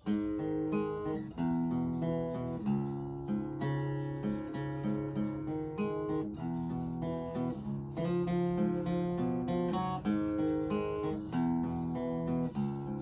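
Acoustic guitar played in a steady pattern of plucked notes and chords, each ringing into the next.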